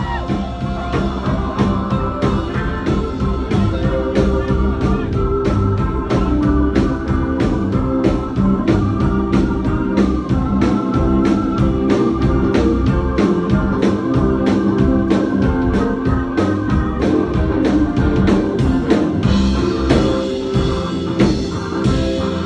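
Live jam-band rock with a fast organ-voiced keyboard solo on a Nord Electro stage keyboard, over a steady drumbeat and bass.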